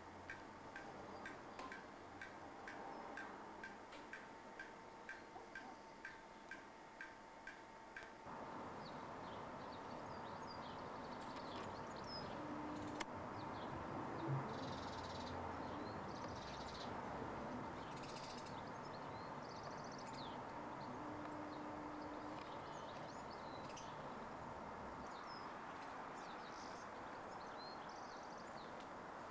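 Pendulum wall clock ticking steadily, about two ticks a second. About eight seconds in the clock cuts off sharply and outdoor ambience takes over: a steady hiss of background noise with birds calling in short high chirps.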